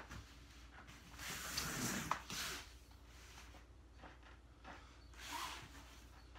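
A dancer's body and bare feet brushing and sliding on foam floor mats: a soft rustle lasting about a second and a half with a sharp click in the middle, and a shorter, softer rustle near the end, over a faint low hum.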